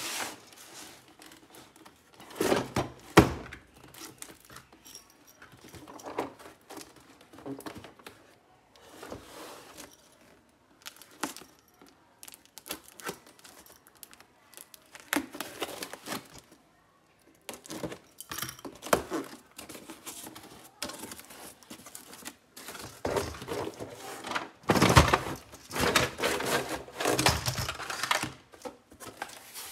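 Cardboard box being handled and opened: sharp knocks as it is moved on the table a few seconds in, a knife slicing through packing tape, then cardboard tearing and scraping as a plastic toy rifle is slid out, loudest near the end.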